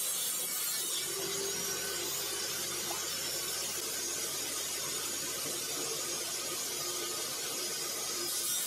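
Steady whirring and hiss of a homemade table saw's motor running, with a shop-vacuum hose connected for dust extraction. The noise stays even throughout, with no separate knocks or bangs.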